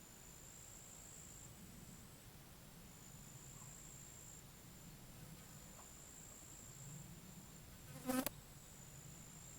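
Insects trilling in a steady, faint, high-pitched drone over a soft low rush of wind. About eight seconds in comes one short, loud buzz.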